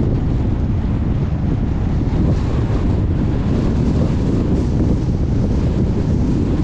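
Steady wind buffeting the microphone over the low rumble of a car driving along the road.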